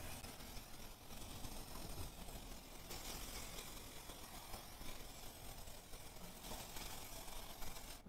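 Aerosol can of spray adhesive hissing steadily as glue is sprayed onto a concrete floor, the hiss brighter from about three seconds in until near the end.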